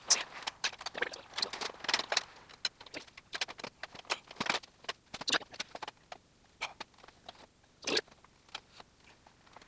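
Irregular metallic clicks, knocks and scrapes of hand tools and metal suspension parts being worked and handled, busy at first and thinning out after about five seconds.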